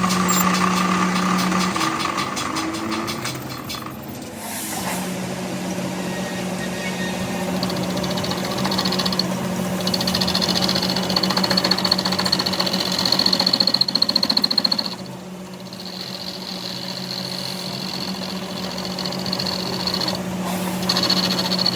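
A machine running steadily with a continuous hum. A high whine joins about nine seconds in and cuts out briefly twice, with a dip in loudness around fifteen seconds.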